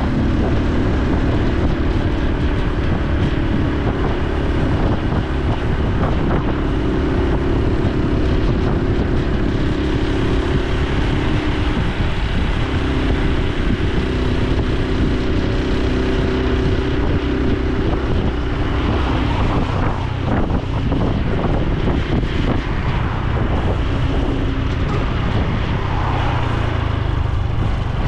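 Honda Super Cub C125's 125 cc single-cylinder four-stroke engine and exhaust running under way, its note shifting in pitch several times, with wind noise on the microphone.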